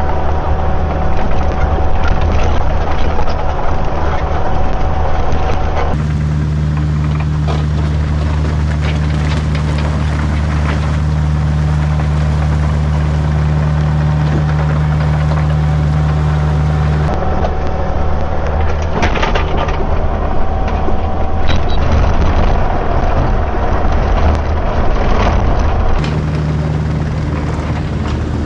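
Diesel engine of a Kubota compact machine running steadily while working, with scattered knocks and scrapes.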